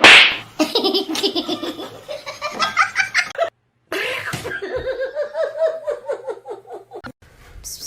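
A sharp hit right at the start, then high-pitched laughter in two long, rapid bouts, broken by a brief silence about three and a half seconds in.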